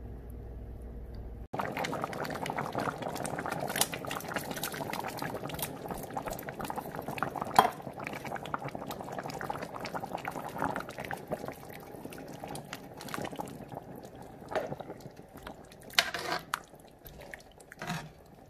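A pot of chicken soup bubbling at a boil, a dense crackling simmer that starts suddenly about a second and a half in after a low steady hum. A few sharper clinks stand out over it, a ladle knocking in the pot.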